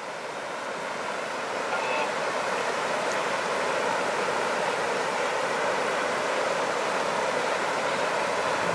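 Shallow, rocky river rushing steadily, fading in over the first couple of seconds.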